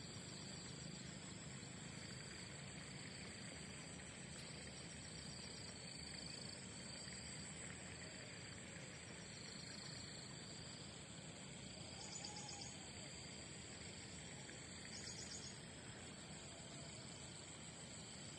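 Faint outdoor field ambience: a steady high insect chirring with short scattered chirps over it, and a couple of brief pulsed bursts about two-thirds of the way through.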